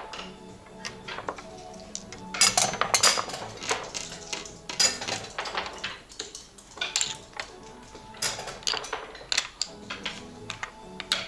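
Wooden backgammon checkers clacking against each other and the board as they are moved and stacked, in several quick clusters of clicks, over quiet background music.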